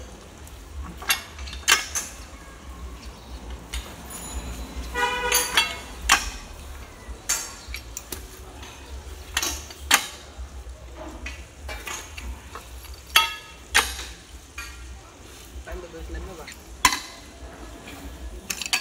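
Steel pipe wrenches clinking and knocking against the steel drill pipe of a hand-operated soil-test borehole as the pipe is worked to bring up soil. The clinks come at irregular intervals over a low steady hum.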